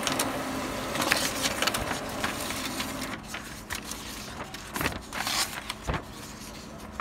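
HP LaserJet laser printer running as it prints and feeds out a report page, a steady mechanical noise that stops about three seconds in. Paper rustles and crackles as the printed sheets are handled, with bursts about a second in and again near five and six seconds.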